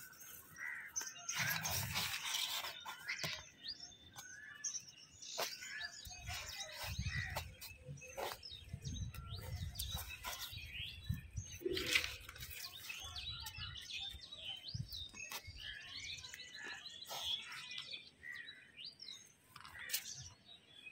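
Small birds chirping and calling all through, with bursts of low rustling and handling noise as weeds are pulled out of the soil among the plants.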